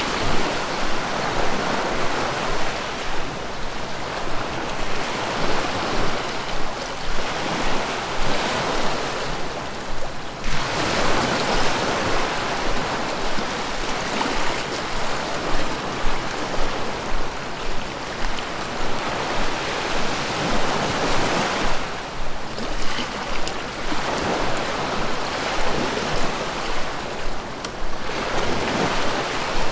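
Ocean surf rolling onto a beach: a steady wash of waves that swells and eases, building to fresh breakers about a third of the way in and again about three-quarters of the way in.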